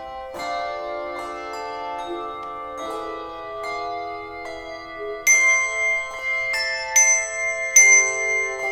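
Instrumental music of ringing, bell-like struck notes, with overlapping chords that change every second or so. About five seconds in, louder and brighter notes start striking higher up.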